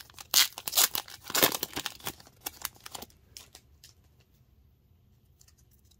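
Foil wrapper of an Upper Deck hockey card pack being torn open and crinkled: a dense run of sharp crackles for about three seconds that then dies away to a few faint clicks.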